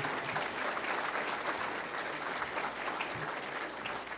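Audience applauding, many hands clapping steadily and tapering slightly near the end.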